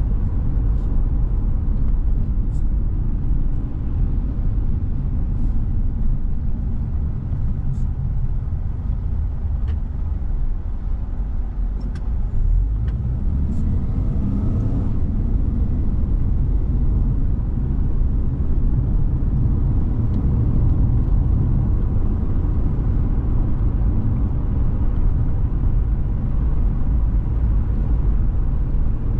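Steady low road and engine rumble heard from inside a car cruising on a multi-lane road. A few faint ticks come in the first half, and a brief tone rises and falls about halfway through.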